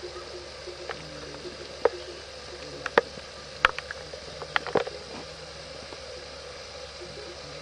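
Steady outdoor hiss with a handful of short, sharp clicks and knocks clustered between about two and five seconds in.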